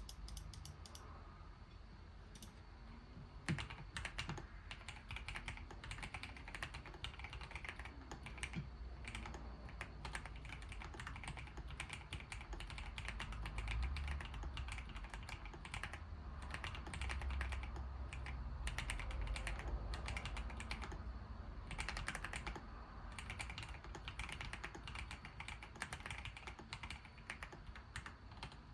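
Feker Alice 80 mechanical keyboard being typed on continuously, an irregular stream of key clacks with no pauses longer than a moment.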